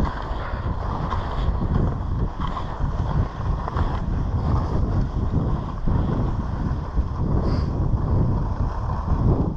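Wind buffeting the camera microphone at skiing speed, mixed with the steady hiss of skis sliding over groomed snow.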